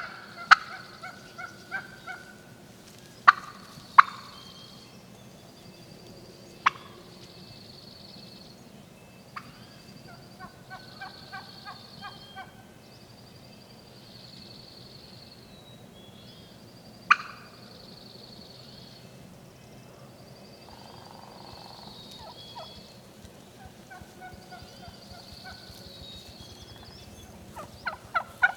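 Wild turkeys: a tom gobbles near the end. Before it come a few short series of yelps and several sharp single clucks.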